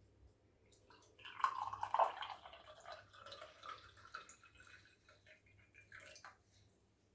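Water pouring and splashing into a pan to make tea, loudest just after it starts and tapering off over about five seconds.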